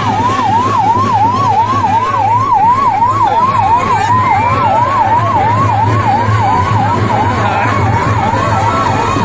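Ambulance electronic siren in a fast yelp, its pitch rising and dropping about three times a second without a break.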